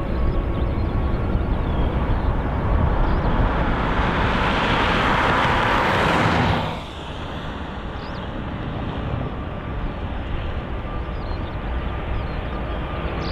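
Qantas Airbus A380's four Rolls-Royce Trent 900 jet engines running as the aircraft rolls along the runway, a steady low rumble. A hissing rush builds to its loudest about halfway through, then cuts off abruptly and leaves the lower rumble.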